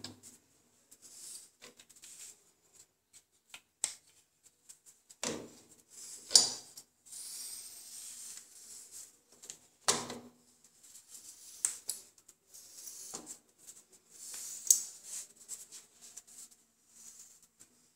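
Irregular clicks and knocks of chrome plumbing fittings being handled and fitted by hand at a wall-mounted bidet valve, with a short stretch of rustling about seven seconds in.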